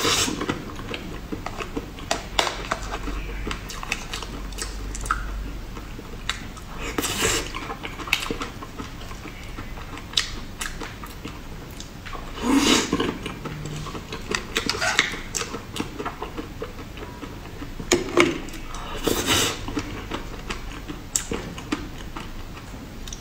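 Close-up chewing and mouth sounds of someone eating soft cream-filled mousse cake, with occasional light clicks of a metal fork against the teeth and the plate.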